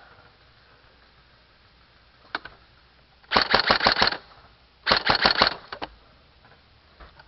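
Airsoft gun firing: a single shot, then two short bursts of rapid shots, each under a second long, with a couple of faint shots after.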